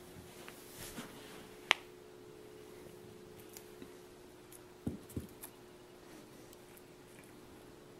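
Quiet room with a steady low hum, broken by faint rustles, a sharp click about two seconds in and two soft thumps around five seconds in, from a cat rolling on carpet and pawing at a small toy.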